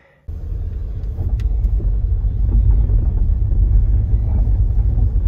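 Low, steady rumble of a car on the move, heard from inside the cabin. It starts abruptly about a third of a second in.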